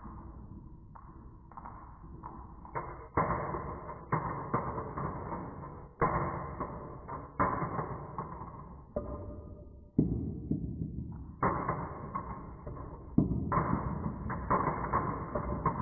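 Marbles rolling and clattering down a wooden marble run, with a sudden knock every second or two as they drop onto the next section, then a rumbling roll that fades.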